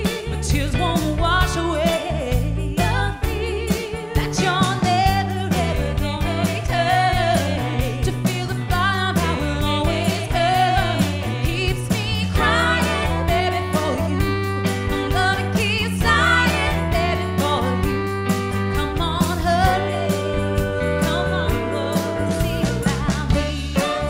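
A 1960s-style soul-pop song with women singing over a band with a steady drum beat.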